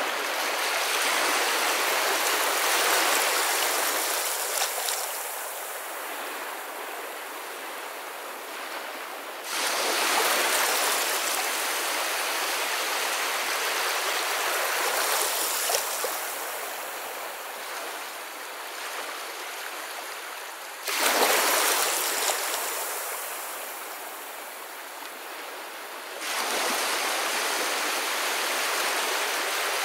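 Running water, a steady rush like a stream. Its level steps up suddenly about a third of the way in, again about two-thirds in, and once more near the end, easing off in between.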